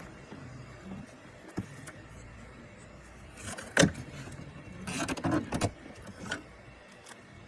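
Plastic hose coupler and fittings of an espresso machine being pushed and worked into place by hand: one sharp click about four seconds in, then a cluster of scraping and rattling knocks about a second later and a smaller one after that.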